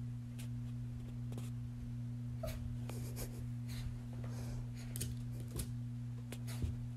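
Cocker spaniel puppy scrabbling and pouncing on carpet, faint scattered scuffs and ticks, over a steady low hum.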